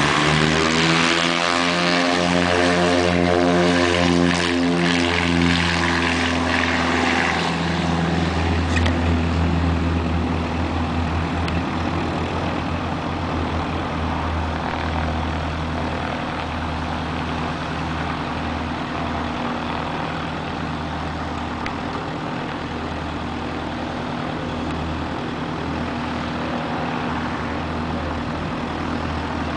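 Beechcraft Duchess twin-engine piston airplane taking off at full power, its two four-cylinder Lycoming engines and propellers droning together. The drone rises in pitch over the first couple of seconds, is loudest through the first several seconds of the roll, then fades steadily as the plane lifts off and climbs away.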